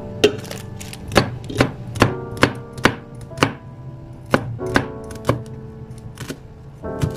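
Cleaver chopping celery stalks on a cutting board: a series of sharp chops, about two a second, thinning out after about five seconds.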